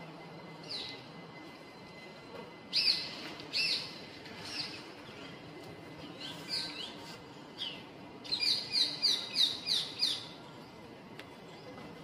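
A bird calling: short, sharp falling chirps now and then, then a quick run of about eight chirps near the end.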